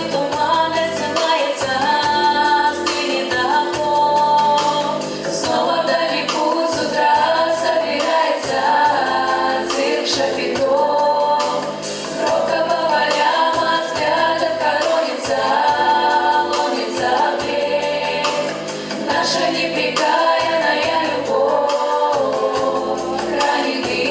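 Vocal ensemble singing the song in several-part harmony over an instrumental accompaniment.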